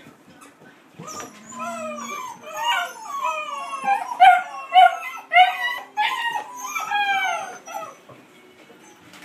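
Dogs howling and whining in a run of high, wavering cries that glide up and down, starting about a second in and stopping near the end: an excited greeting of their owner coming home.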